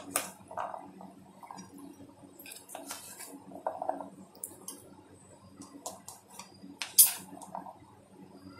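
Chopped fruit being spooned into a glass mug: scattered light clinks and taps of a utensil on the glass and plate, with one sharper clink about seven seconds in.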